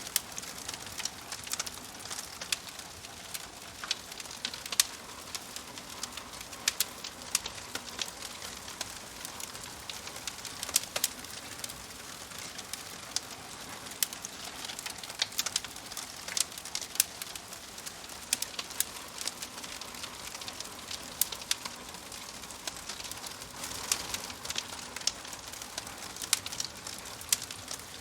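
Wood fire burning in a fireplace, crackling: frequent irregular pops and snaps over a steady soft hiss of the burning logs.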